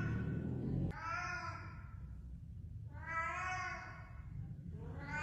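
Ginger domestic cat meowing: two drawn-out meows about a second apart, a third starting near the end.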